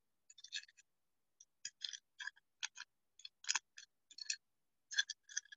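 Trading cards and their pack wrapper being handled: an irregular run of short, crisp rustling clicks, a few to a second.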